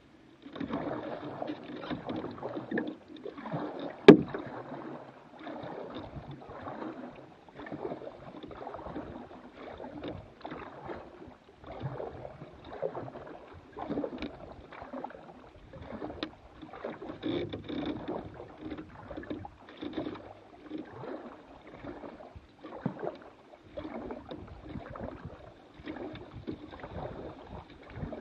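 Canoe paddle strokes on calm river water: repeated dips and pulls with splashes and drips. A single sharp knock about four seconds in is the loudest sound.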